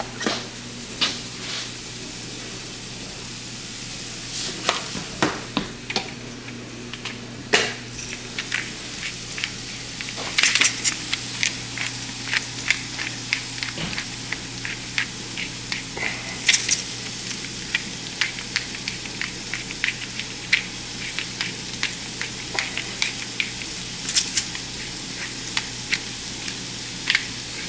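Diced bell peppers, onions and garlic sizzling in butter in a frying pan, a steady hiss, with many quick taps and scrapes of a utensil stirring them against the pan.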